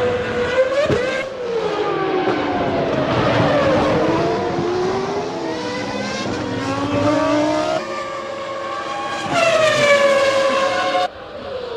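1998 Formula One cars' 3.0-litre V10 engines at racing speed, several at once, their pitch rising under acceleration and falling through downshifts and as cars pass. The sound changes abruptly a few times as the broadcast cuts between shots.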